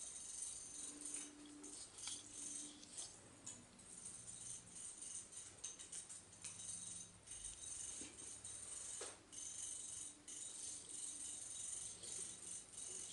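Quiet background music with jingling, shaker-like percussion.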